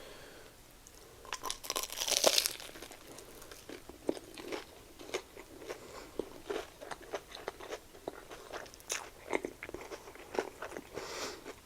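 A bite into a Korean corn dog coated in crispy potato cubes, with a loud crunch about two seconds in, followed by steady chewing with many small crunches and mouth clicks.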